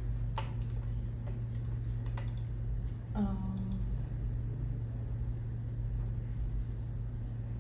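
A few irregular clicks of a computer keyboard and mouse, mostly in the first half, over a steady low hum. A brief voice sound comes about three seconds in.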